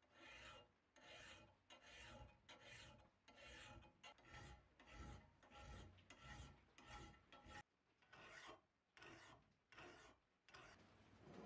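Hand file rasping back and forth across a cast-iron hibachi frame, grinding down casting marks. The strokes are steady, about two a second, with a short pause a little past the middle.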